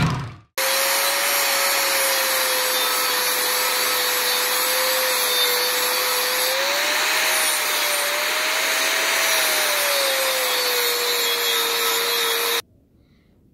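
Angle grinder's disc grinding on a steel roll-cage tube, a steady whine that sags and rises slightly as the disc is pressed into the metal, then cuts off abruptly near the end.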